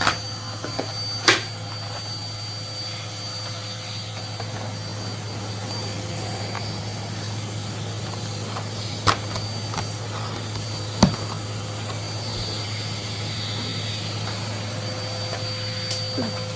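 Henry vacuum cleaner's motor running steadily with a low hum, with a few sharp knocks, about a second in, around nine seconds in and around eleven seconds in.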